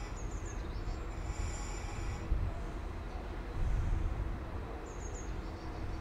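Irish Rail 22000 class diesel multiple unit approaching along the platform: a steady low rumble of its underfloor diesel engines and wheels on the rails, swelling a little past halfway, with a few brief high-pitched squeals.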